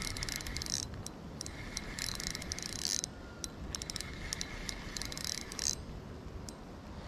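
Spinning reel being cranked to reel in a small hooked bluegill: its gears whir in three short spurts of about a second each, with light clicks between.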